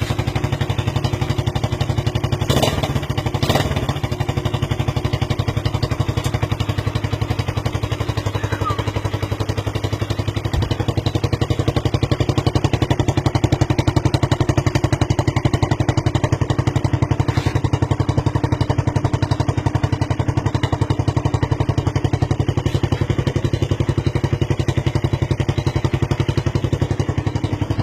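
Suzuki Raider 150's single-cylinder four-stroke engine running steadily through a loud aftermarket exhaust, giving a rapid, even machine-gun-like rattle of exhaust pulses. A couple of sharp knocks sound in the first few seconds.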